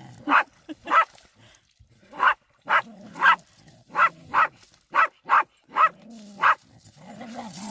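A dog barking repeatedly: about a dozen short, sharp barks, with a pause of about a second after the first three.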